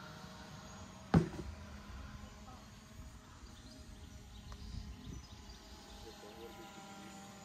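Quiet outdoor background with a single sharp knock about a second in.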